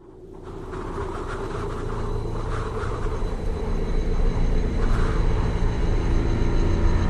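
Dark, rumbling ambient soundtrack music fading in from silence: a low rumble under held drone tones, swelling over the first second and growing slowly louder.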